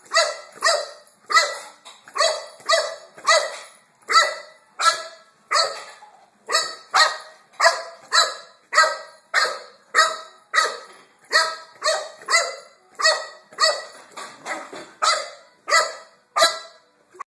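Boxer dog barking over and over in excited play at a toy, a little under two barks a second with a few brief pauses.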